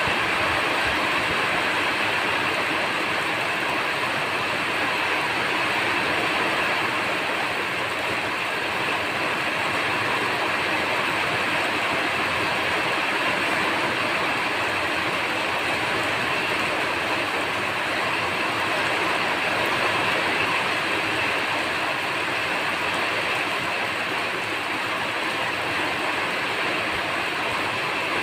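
Steady rain falling: a dense, even hiss of raindrops that holds at one level throughout.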